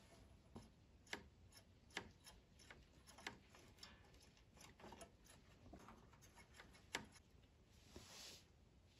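Faint, scattered clicks and ticks of pliers gripping a hose clamp and pulling a braided rubber fuel hose off a small engine's carburetor fitting, with a sharper click about seven seconds in and a short soft rustle near the end.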